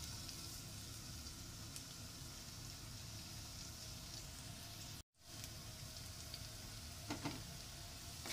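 Minced garlic sautéing in hot olive oil in a nonstick wok, a faint steady sizzle. The sound cuts out for a moment about five seconds in, and a few light clicks come near the end.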